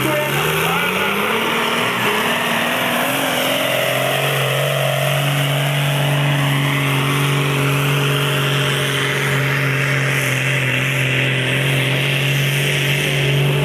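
Tractor diesel engine under full load pulling a weighted sledge down the track. The revs climb over the first few seconds, then hold a loud, steady note.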